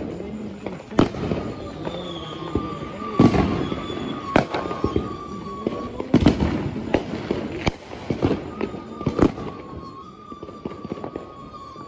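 Fireworks going off: a string of sharp bangs about every one to two seconds, with smaller pops and crackles between them. The bangs thin out and grow quieter near the end.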